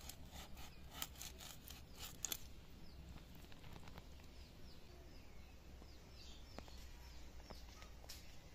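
A quick run of faint scraping clicks as fish pieces are cut against a bonti blade for the first two seconds or so, then small birds chirping quietly.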